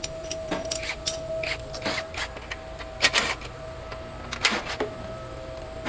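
Hand tools being handled: irregular metallic clicks and clanks, the loudest about three seconds in and again about a second later, over a faint steady whine.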